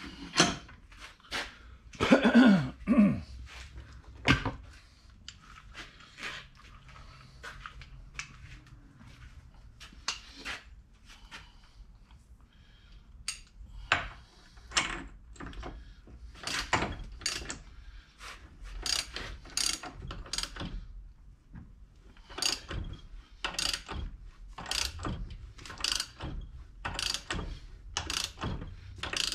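Ratchet wrench clicking stroke after stroke as the pinion nut of a Ford 9-inch rear end is tightened down against the yoke, with a few louder knocks near the start.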